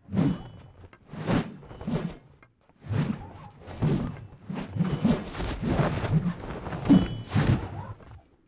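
A long-shafted bronze dagger-axe (ge) swung hard through the air in drill: a run of about a dozen swishes with thuds, one every half second or so, that stops suddenly just before the end.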